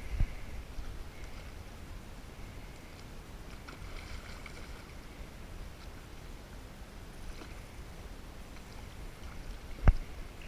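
Small diamond sturgeon splashing and swirling at the surface of the water by the bank as it is played on the line, over a steady low rumble of wind on the microphone. A single sharp knock sounds just before the end.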